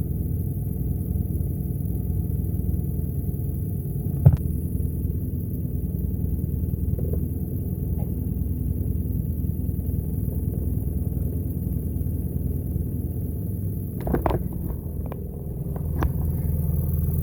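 Boat motor running steadily with a low, even rumble. A single sharp knock comes about four seconds in, and a few clicks and knocks near the end.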